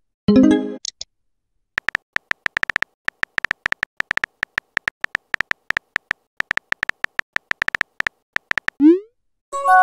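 Texting-app sound effects: a short pitched message pop just after the start, then several seconds of quick keyboard-tap clicks as a reply is typed letter by letter, ending with a short rising swoosh as the message is sent and another brief pitched blip near the end.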